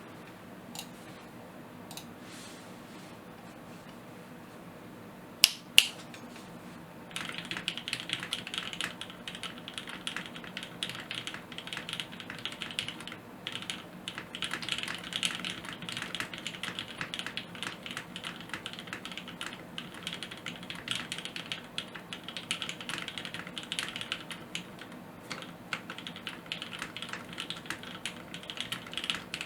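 Mechanical keyboard with lubed Gateron Pink linear switches, an aluminium plate and GMK keycaps being typed on steadily and fast from about seven seconds in. Before that there is only a faint steady hum, broken by two sharp loud clicks a moment apart.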